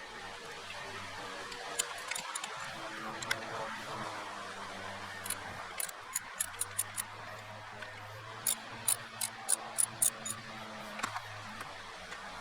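Sharp metallic clicks of hand tools working on the engine, in two runs of about three clicks a second, over a steady low hum.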